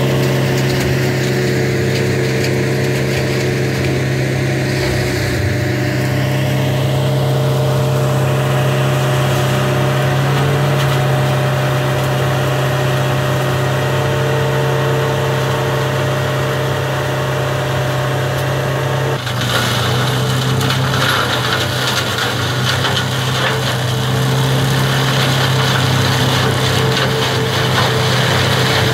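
Caterpillar 226 skid steer's diesel engine running steadily, driving a UEMME Scorpion 1600 front shredder whose rotor is mulching brush and grass. About two-thirds of the way through the sound changes abruptly, with much more high hiss from the shredding.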